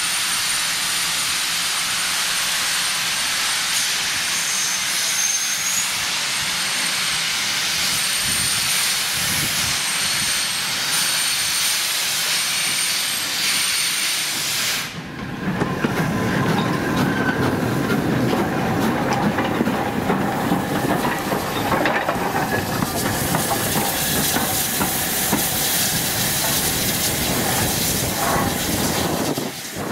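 BR Standard steam locomotive hissing steam as it moves slowly past at close range, with faint high squealing tones over the hiss. About halfway through the sound changes abruptly to a louder, rougher hiss with rapid rattling.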